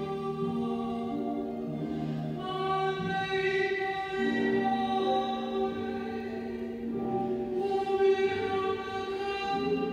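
Slow choral music: several voices singing long held notes in harmony, changing chord every second or two.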